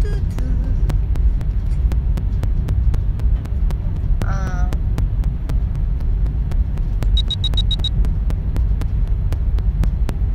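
Steady low rumble inside a train carriage, picked up by a phone's microphone. A brief voice-like sound comes about four seconds in, and five quick high beeps sound in a row about seven seconds in.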